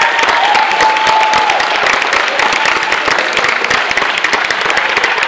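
Theatre audience applauding, with cheering that dies away over the first couple of seconds.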